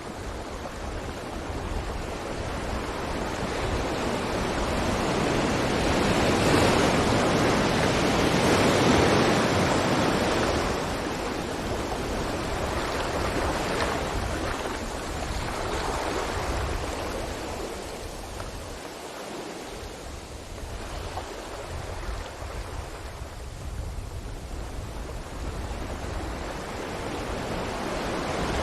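Sea waves breaking on a beach: a steady rushing wash that swells into a loud surge about a third of the way in, ebbs, then builds again toward the end.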